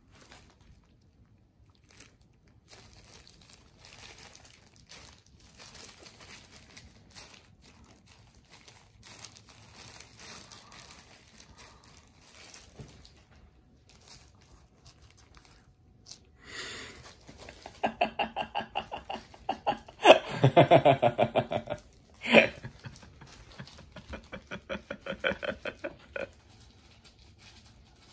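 Thin plastic food-handling gloves crinkling and rustling as gloved hands press and shape sushi rice. About two-thirds of the way in comes a louder run of quick, rhythmic pitched squeaks lasting several seconds.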